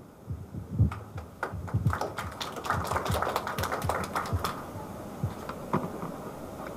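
Handling noise from a live handheld microphone: irregular knocks and clicks as it is passed over and handled, busiest in the middle, then a few scattered taps.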